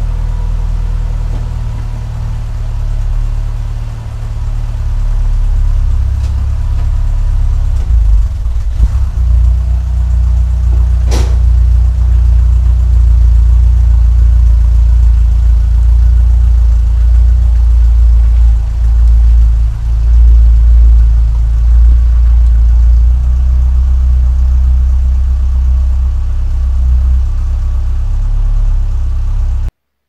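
Ford Sierra 2.0's four-cylinder petrol engine running a little rough and unevenly, after years standing unused since 2013. The engine gets louder about eight seconds in as the car moves forward a short way. There is one sharp click a few seconds later, and the sound cuts off just before the end.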